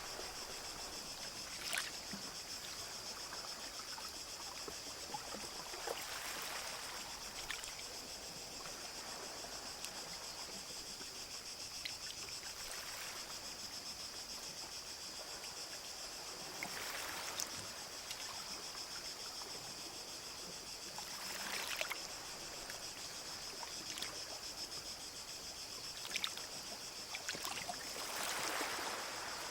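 Small sea waves lapping gently on a shore, with about four soft washes rising and falling, under a steady high-pitched whine.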